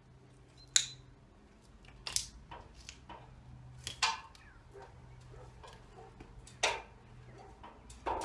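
Sharp knocks and clinks, about five spread irregularly over several seconds, from a workman on a ladder handling things at the edge of a slate roof.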